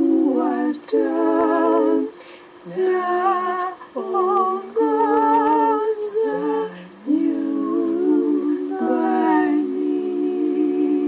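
A cappella voices singing a slow hymn in close harmony, with vibrato on the held notes, in short phrases broken by brief pauses. Near the end the voices settle onto one long held chord.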